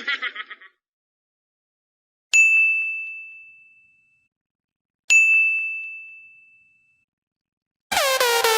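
Two identical bell-like 'correct idea' ding sound effects about three seconds apart, each a sharp strike on one bright ringing tone fading out over about a second and a half. A giggle trails off at the very start, and electronic dance music comes in near the end.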